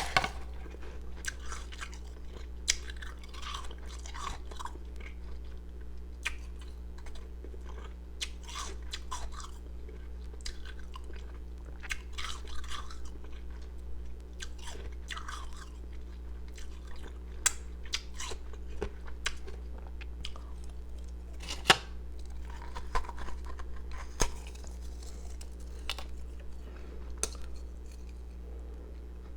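A person chewing and crunching pieces of ice close to the microphone: irregular crisp crunches every second or so, over a steady low hum.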